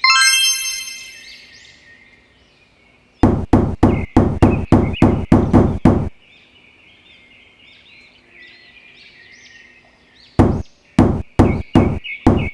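Two runs of sharp knocks, about four a second, like hard tapping on wood while a small build is put together. A ringing chime fades out at the start, and faint bird chirps sound between the knocks.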